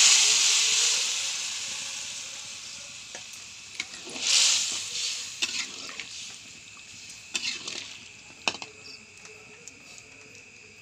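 Boiled chickpeas and potatoes hit hot oily masala in a kadai and sizzle loudly, the sizzle dying away over a few seconds and flaring again about four seconds in. A spoon knocks and scrapes against the pan as the curry is stirred.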